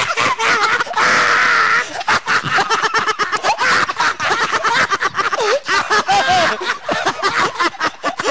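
Men screaming and shouting in a scuffle, with one long scream about a second in, and many sharp knocks and smacks throughout.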